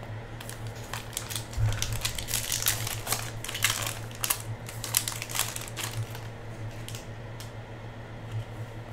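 Foil trading-card pack wrapper being torn open and crinkled by hand, a dense run of crackling from about a second and a half in to about six seconds, then a few lighter clicks as the cards are handled.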